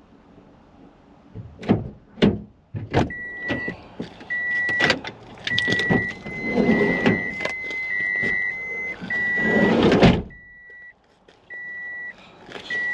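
A car's door-open warning chime sounding with the driver's door open: one high beep about every second, starting about three seconds in. Before it, sharp clicks as the door is unlatched and opened; later, rustling and handling noises.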